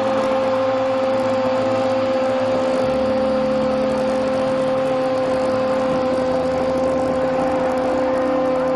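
A football commentator's goal cry: one long "gol" held on a single steady pitch, over stadium crowd noise.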